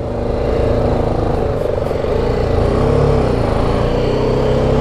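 BMW G310 GS motorcycle's single-cylinder engine running while the bike rides along a street, its note dipping and rising briefly about halfway through.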